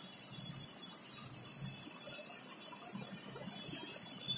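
Faint strokes of a marker writing on a whiteboard, over steady room hiss.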